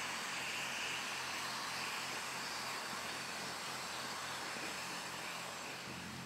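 Steady hiss over a low, steady engine hum.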